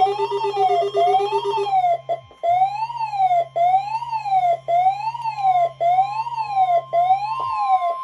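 Electronic siren-like alert tone of a severe thunderstorm warning, rising and falling about once a second, with a steady high tone held under it from about two seconds in.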